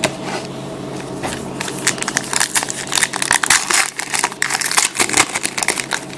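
Foil trading-card pack wrapper crinkling and crackling as it is torn open, a dense run of crackles from about a second and a half in until near the end.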